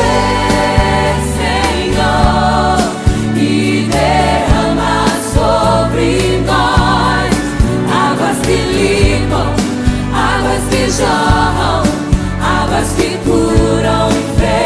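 Gospel worship song: singing voices with vibrato over a steady bass line and a drum beat.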